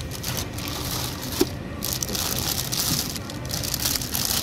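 Plastic sleeves of store flower bouquets crinkling and rustling as they are handled, with one short tick about a second and a half in.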